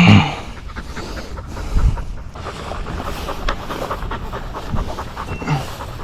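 Hunting dog panting hard and fast after a long chase, with a short loud sound right at the start.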